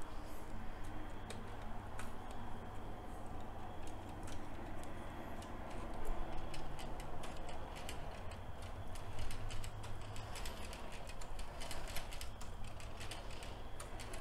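Motorized LEGO Technic truck running on its Power Functions motors: a low steady hum with irregular plastic clicking and ticking from the gears and parts, the clicks coming thicker in the second half.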